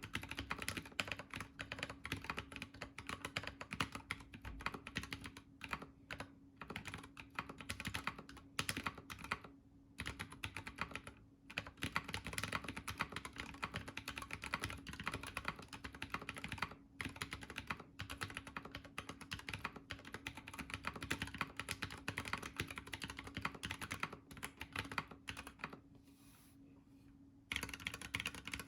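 Fast continuous typing on a Planck 40% mechanical keyboard with lubed AEBoard Naevy tactile switches and PBT keycaps, dense key clacks with a few short pauses and a longer lull of about two seconds near the end.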